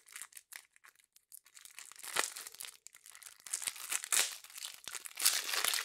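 Plastic wrapping on a deck of game cards being picked at and torn off, crinkling and crackling. A few faint ticks come first, then the crinkling grows louder and busier from about two seconds in.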